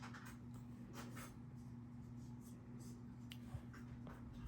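Faint taps and short scratching strokes of an Apple Pencil tip on an iPad's screen protector, a handful spread out with gaps between them, over a low steady hum.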